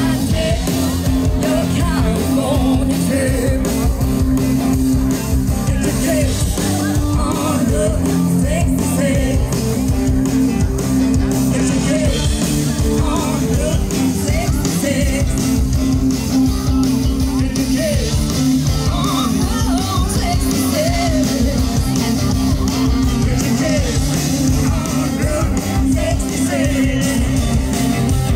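Rock music with singing, playing steadily throughout.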